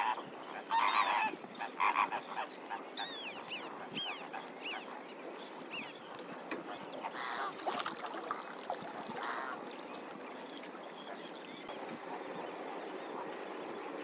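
A flock of flamingos honking, many goose-like calls overlapping. The calls are thickest in the first half and thin out after about ten seconds, leaving a steady background noise.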